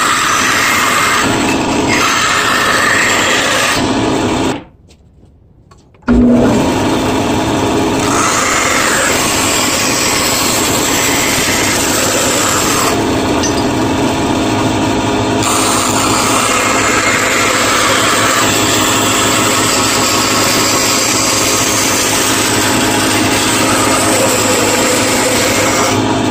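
Band saw running steadily, its blade cutting a thin walnut blank along a curved outline. The sound drops away for about a second and a half about five seconds in, then resumes.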